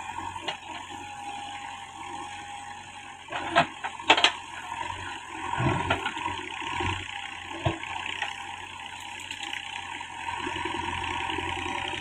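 JCB 3DX backhoe loader's diesel engine running steadily under load as the backhoe bucket digs, with a few sharp knocks, the loudest about three and a half and four seconds in.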